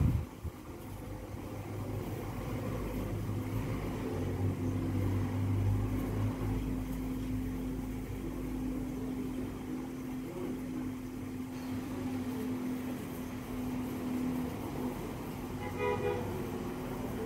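Steady low mechanical hum with a held tone, and a short horn-like toot near the end.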